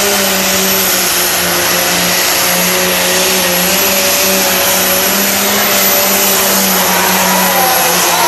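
Ford 9600 tractor's turbocharged six-cylinder diesel running flat out under load as it pulls the sled, a loud, steady engine note.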